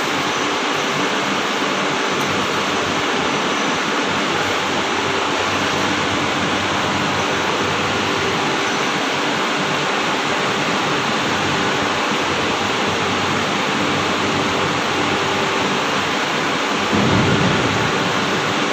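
Steady, even rushing background noise with no distinct events, and one short low rumble near the end.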